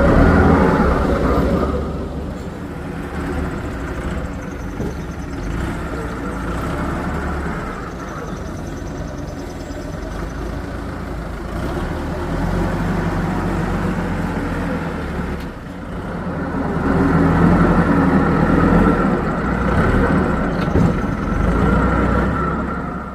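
Diesel engine of heavy construction machinery running under load, loud at first, easing after a couple of seconds, then rising again about two-thirds of the way through before dropping away near the end.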